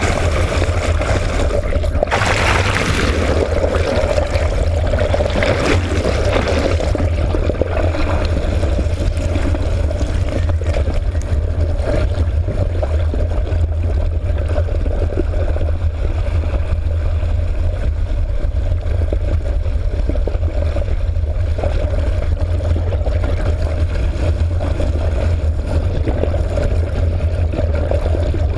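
Boat engine heard underwater as a steady low hum, with water rushing over the camera housing; brief hissing surges of water come around two to three seconds in and again near six seconds.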